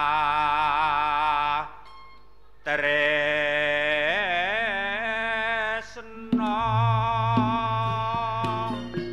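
A singer holds long, wavering notes in Javanese gamelan vocal style, breaking off briefly about two seconds in before a second long phrase. About six seconds in, the gamelan joins with drum strokes and struck metal keys.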